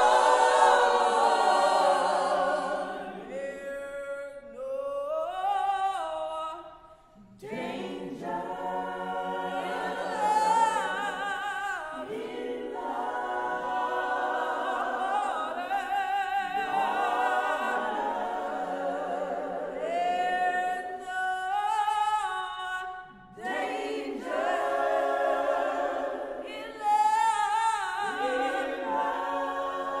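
Mixed choir of men's and women's voices singing a gospel-style choral piece in sustained phrases, with a brief break about seven seconds in.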